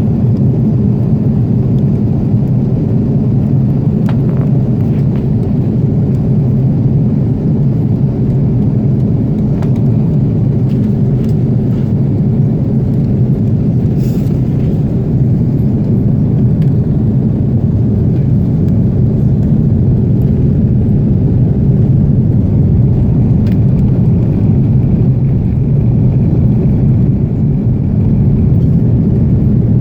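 Airbus A330 cabin noise: a loud, steady rumble of engines and airflow heard inside the airliner, with a few faint ticks.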